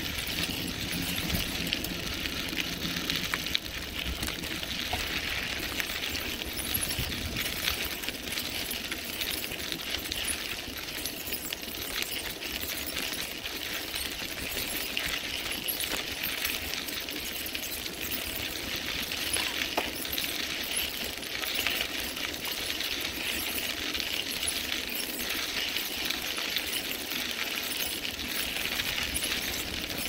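Bicycle tyres rolling fast over a crushed-stone rail-trail surface: a steady gritty hiss full of small clicks and pings from the stones. A low rumble runs under it through the first several seconds, then eases off.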